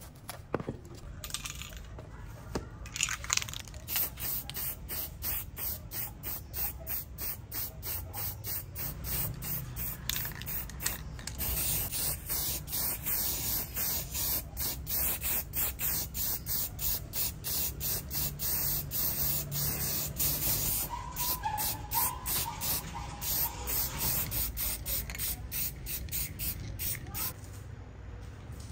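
Hissing spray in short, rapid pulses, about three a second, starting a few seconds in and tailing off near the end.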